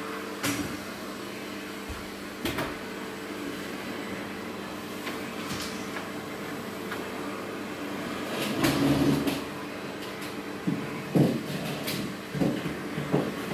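Knocks and clattering of things being handled and moved while cleaning behind a sofa, over a steady low hum. A few single knocks come in the first half; a busier run of bumps and clatter, the loudest part, starts about two-thirds of the way in.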